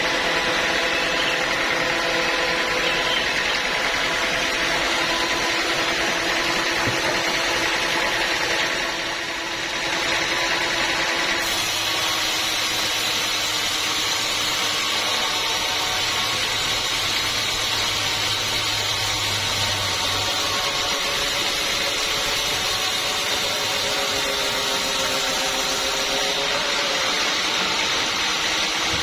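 Sawmill saw running steadily while cutting acacia wood, a continuous machine noise with a steady hum, briefly dipping about nine seconds in.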